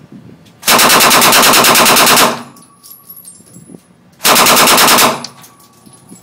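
Fully automatic submachine gun firing two bursts of rapid, evenly spaced shots: a longer burst of about a second and a half, then a shorter one of under a second a couple of seconds later. Each burst rings off briefly in the indoor range.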